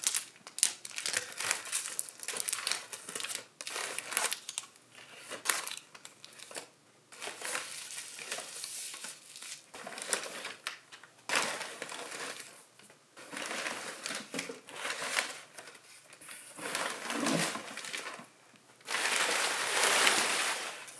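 Crumpled packing paper and plastic-wrapped items rustling and crinkling as hands rummage through a cardboard shipping box, in irregular bursts that are loudest near the end.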